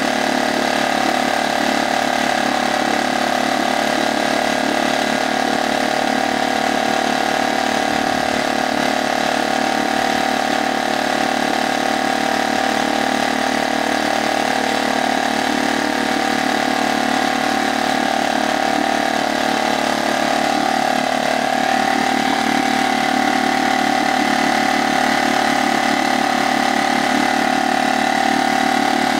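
HDX F 2.6 single-cylinder four-stroke outboard motor, new and on its second start, running steadily at idle with its leg in a barrel of water; its pitch lifts slightly about two-thirds of the way in.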